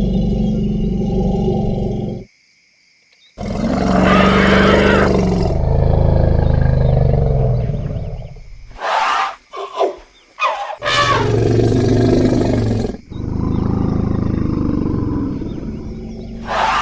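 Elephants calling: long, deep rumbling roars and groans, broken by a brief near-silent gap about two seconds in. Around nine to ten seconds in come several short, sharp, high trumpet-like blasts, followed by more deep rumbling calls.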